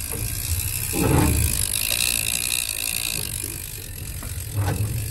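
Boat's outboard motor running steadily under wind and water noise. There is a loud knock about a second in and a brief high-pitched whine in the middle.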